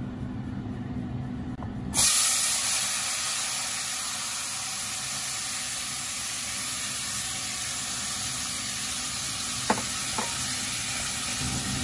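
Diced tomatoes hitting hot oil in a pot: a sudden loud sizzle starts about two seconds in and settles into a steady frying hiss. Near the end a spatula knocks twice against the pot as the tomatoes are stirred.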